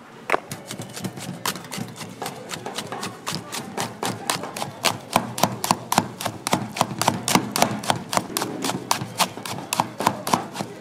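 A metal utensil beating raw eggs and shredded cabbage in a stainless steel pitcher, clinking sharply against the pitcher's sides several times a second; the strokes grow louder and quicker a few seconds in. This is the egg-and-cabbage batter for Korean street omelette toast being mixed.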